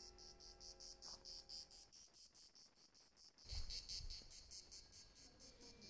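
A cricket chirping steadily, about five high-pitched chirps a second, with a low rumble about halfway through.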